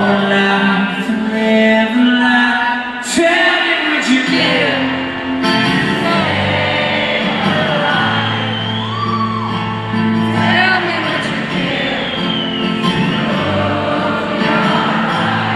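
Live rock band music with singing, heard from the audience at a concert.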